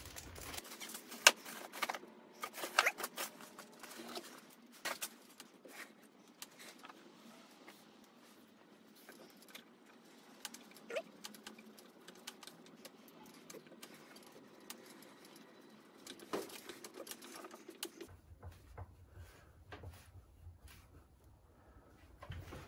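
Faint, scattered metal clicks, taps and light scrapes of small screws and a hand tool being handled at the engine's cam chest as screws are put back in. The clicks cluster in the first few seconds and again about two-thirds of the way through.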